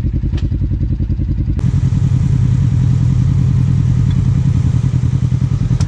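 Off-road vehicle engine running with an even low pulse. About a second and a half in, the sound switches abruptly to another recording in which an engine runs louder and steadier.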